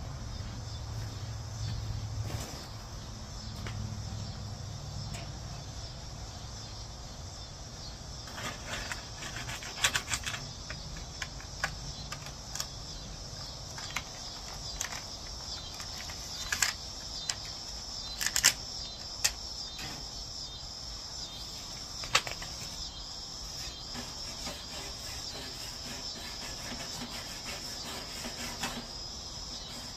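Steady high-pitched insect trilling throughout. Scattered sharp clicks and knocks from about 8 to 23 seconds in are the loudest sounds, and a low hum fades out in the first several seconds.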